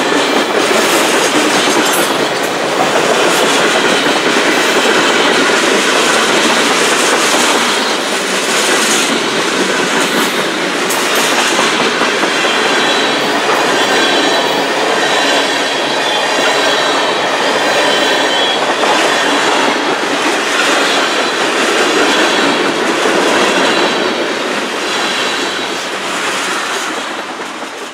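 Freight cars rolling past close by: a steady, loud wheel-on-rail rumble with occasional clicks and faint high wheel squeal, fading out near the end.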